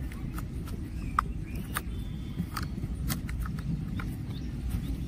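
Low, steady outdoor rumble with a scattering of faint sharp clicks and ticks.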